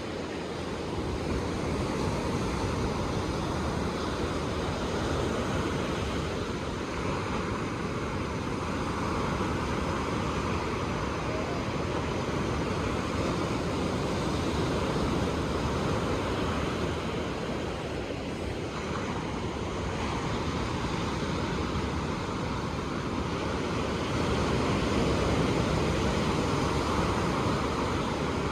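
Ocean surf: waves breaking and washing ashore in a continuous rush that swells and eases slowly every several seconds.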